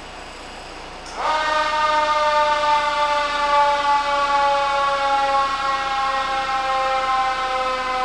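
Fire truck siren switched on about a second in: it sweeps up quickly to a loud, high tone, then holds, slowly falling in pitch.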